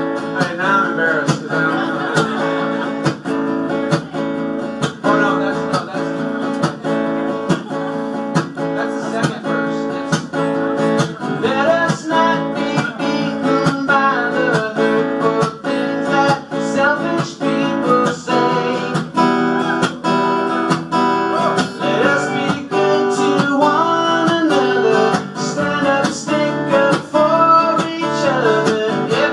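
Acoustic guitar strummed in a steady rhythm, played live as a solo instrumental passage.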